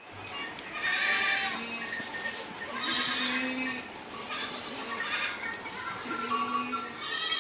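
Background music with goats bleating several times over it, short wavering calls that come every second or two.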